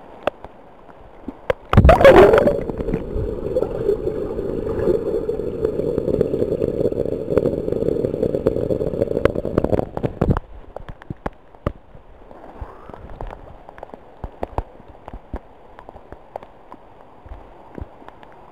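Tropical downpour on a swimming pool: rain patters on the water with many sharp drop ticks close by. About two seconds in, a loud muffled rushing noise starts suddenly, and it cuts off abruptly near ten seconds.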